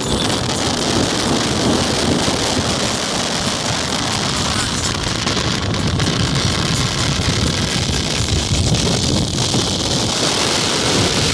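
Wind buffeting the microphone over the steady rush of engines and tyres as high-powered cars pass at speed.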